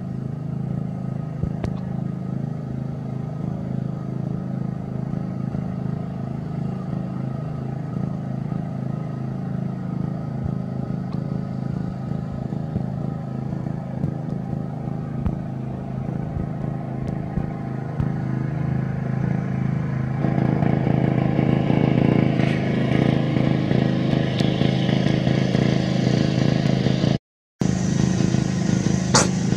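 Steady drone of an engine running, which gets louder and brighter about two-thirds of the way through and cuts out briefly near the end.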